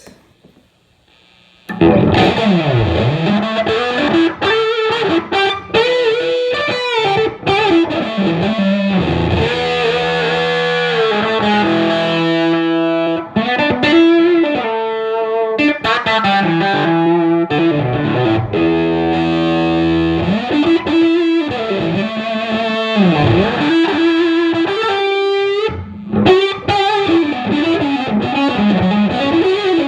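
Electric guitar, a 2013 Gibson '58 reissue Les Paul, played through a fuzz pedal set to its germanium Fuzz Face side and a 1969 Fender Bassman amp: a distorted, fuzzy guitar line starting about two seconds in, with bent and sustained single notes and a couple of held chords.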